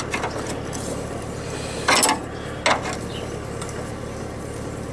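A wrench clinking against the tractor's steel frame: a few sharp metallic clinks, the loudest about two seconds in and another just after, over a steady low hum.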